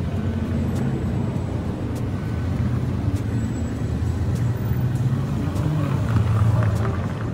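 Road traffic: car engines running and passing in a steady low rumble.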